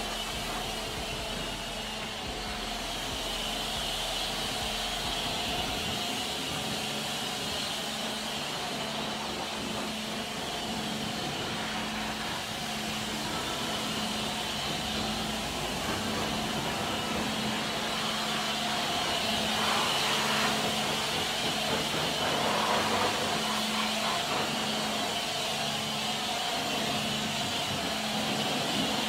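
High-pressure water jet from a pressure-washer lance hissing steadily as it blasts foam and mud off a dump truck's steel body and tyres, over a low pulsing hum.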